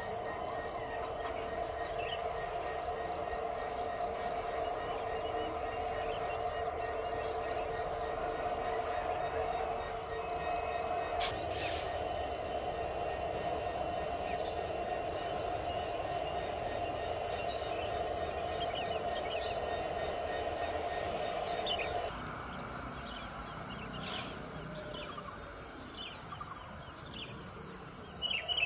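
Steady, pulsing chorus of insects, with a steady lower hum underneath that cuts off about three-quarters of the way through; after that, a few short bird chirps.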